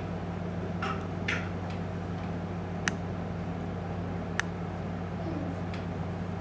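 Steady low hum under the room, with two soft brushing sounds about a second in and two sharp clicks about a second and a half apart in the middle.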